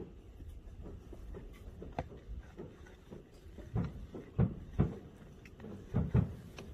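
Distant aerial fireworks bursting: a series of low booms, the loudest pair about halfway through and another pair near the end.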